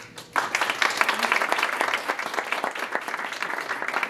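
Audience applauding, a dense clapping of many hands that starts about half a second in.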